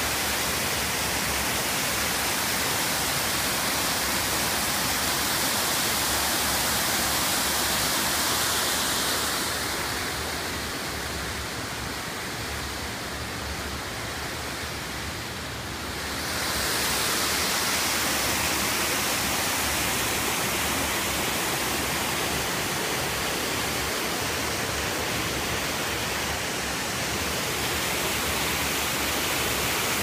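Creek waterfall rushing steadily over a rock ledge, an even, continuous hiss of falling water. About ten seconds in, the sound softens and loses its high hiss for several seconds, then returns to full strength.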